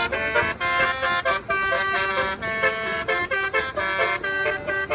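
Basuri telolet bus horn playing a quick tune, one horn note after another with short breaks between them.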